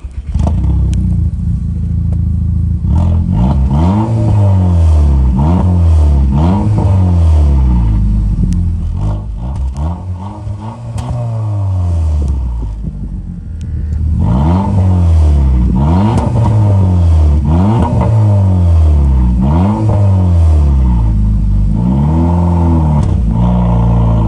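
Skoda Octavia's tuned exhaust, with the resonator removed and a vacuum exhaust valve fitted, as the engine is revved repeatedly. The revs rise and fall about once a second, with one longer rev and sharp pops in between. The engine drops back briefly about halfway through, then a second run of revs follows.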